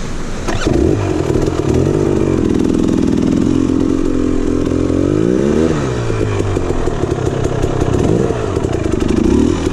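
KTM 300 XC two-stroke dirt bike engine revving under load as the stuck bike is worked up a steep dirt bank. The revs waver, climb to a peak about halfway through, drop away, then rise again near the end.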